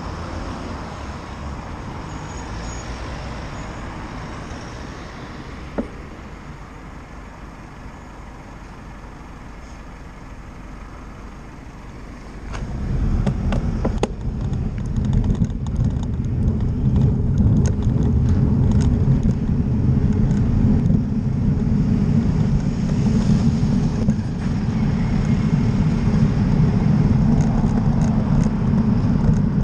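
Road traffic passing a junction, then a loud steady rumble of wind buffeting the camera once the rider moves off a little before halfway, with cars and a lorry passing close.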